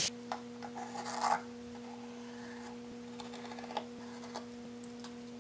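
Pencil scratching faintly as it traces around a small bearing on a thin plywood piece, with a few light clicks of the parts being handled, the clearest about a second in. A steady low hum runs underneath.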